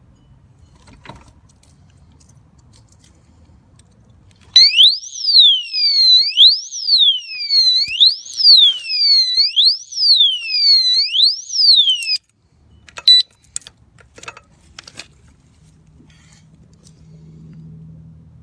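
Alarm siren of a motorcycle disc brake lock sounding: a loud electronic siren sweeping up and down in pitch a little faster than once a second. It starts about four seconds in, runs for about eight seconds and cuts off suddenly, followed by a few sharp clicks.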